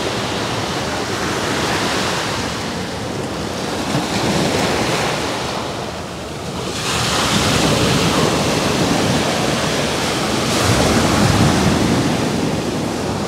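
Sea waves washing in and breaking on the shore, with wind buffeting the microphone. The surf swells louder about halfway through.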